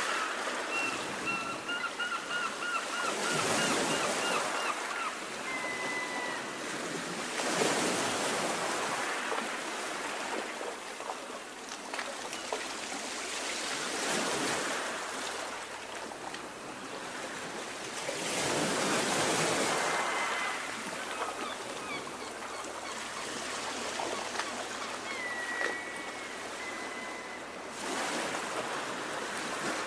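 Small waves washing and lapping on a choppy sea, the sound surging up every few seconds and easing off between. A bird gives a rapid run of calls for a few seconds near the start, and short single calls come a few times later.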